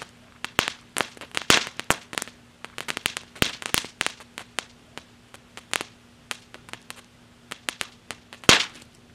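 Imperial Dragon 'Crackling Dragon' crackle fountain, a 1.4G consumer firework, burning down: irregular sharp crackling pops that thin out as it dies, with a last loud cluster of crackles about eight and a half seconds in.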